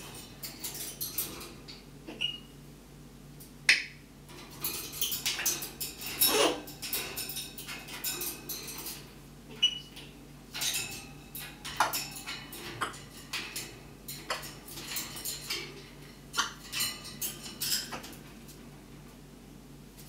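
Pet parrot mimicking fireworks: an irregular run of sharp pops and crackly hisses, with a couple of short high whistles, the loudest pops about four and six seconds in.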